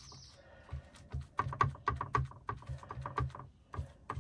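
Paintbrush dabbing and knocking against a plastic paint palette while mixing thick acrylic paint: a run of quick, irregular knocks, a few a second, starting about a second in.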